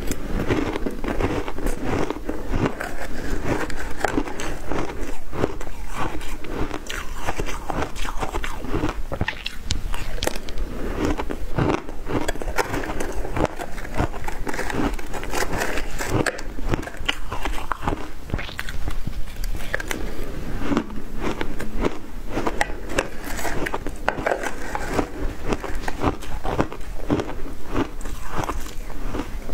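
Close-miked crunching of frozen flavoured ice chunks being bitten and chewed, a dense crackle that goes on without a break.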